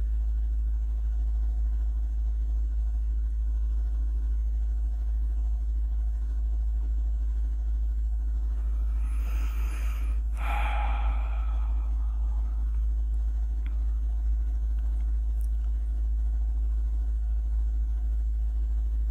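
A steady low hum throughout, with one breathy sigh or exhale near the microphone about ten seconds in.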